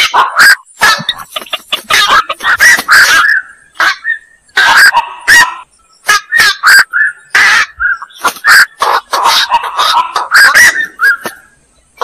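Black-crowned night herons calling: short, loud calls in quick succession, broken by a few brief pauses.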